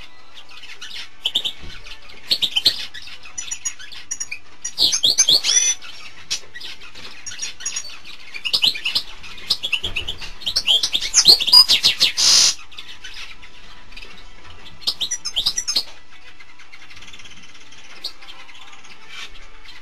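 European goldfinch singing: four bursts of fast, tinkling twittering, the longest and loudest a few seconds past the middle.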